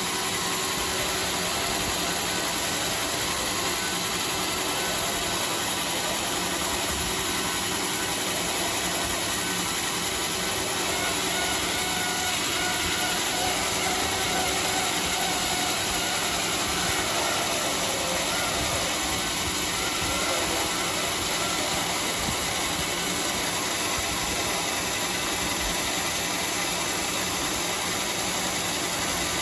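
Homemade band sawmill running steadily as it saws through a teak log, with an even, unbroken mechanical noise.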